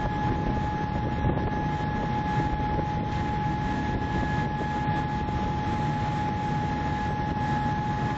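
Steady drone of a passenger ferry under way: low engine rumble mixed with wind and water noise, with a constant high whine.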